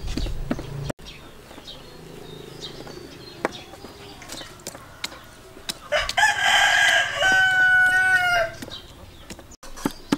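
A rooster crows once, a long call starting about six seconds in, the loudest sound here. Around it, short scattered taps and clicks from a nail-studded wooden pricker jabbing sausages on a metal tray.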